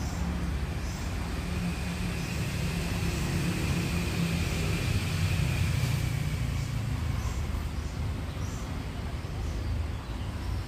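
Steady low rumble of distant motor traffic, with a faint high tone drifting slowly through the middle.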